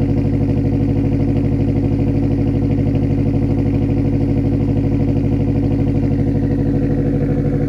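Turbocharged Toyota GT86's flat-four boxer engine idling steadily through a straight-piped exhaust, a loud, evenly pulsing idle.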